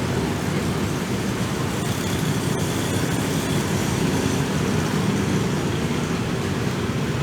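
Steady rumbling street-stall ambience with a hiss above it, and a couple of faint clicks about two seconds in.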